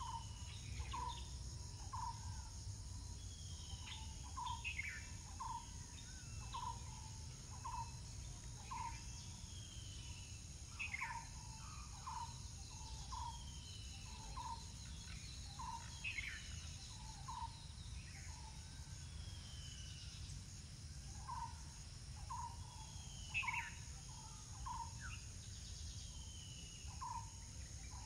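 Birds calling: a short low note repeated about once a second in runs, with higher down-slurred calls over it. A steady high insect drone lies beneath them.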